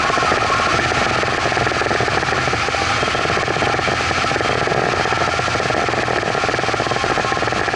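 Evinrude outboard motor running steadily at speed under load while towing a kneeboarder, mixed with rushing water from the wake.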